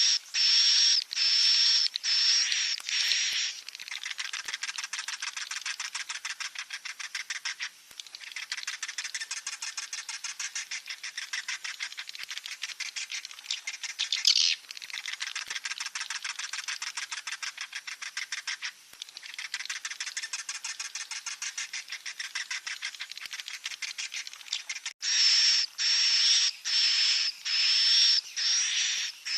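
Swiftlet chicks calling: a run of loud, sharp, high chirps, one or two a second. About four seconds in this gives way to a long stretch of quieter, fast, buzzy chittering, and the loud chirps return near the end.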